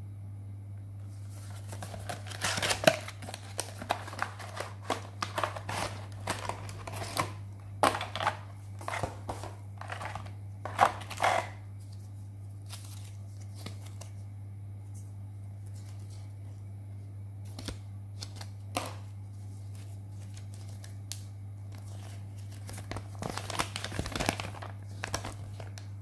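Unboxing: a cardboard box being opened and paper inserts and plastic packaging handled, with bursts of rustling and crinkling and scattered light taps. The rustling is busiest in the first half, thins to a few taps, and picks up again near the end, over a steady low hum.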